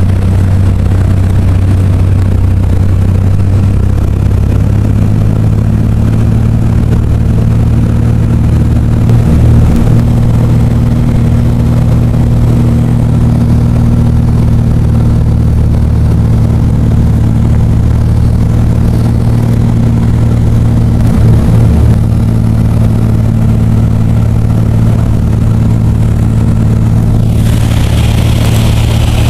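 Small aircraft's engine drone heard from inside the cabin, loud and steady with an unchanging low hum. A brief hiss rises near the end.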